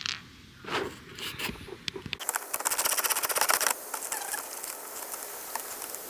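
Hand tools being handled, a socket wrench and sockets clicking and knocking. Then a dense run of rapid clicks for about a second and a half, followed by a steady hiss.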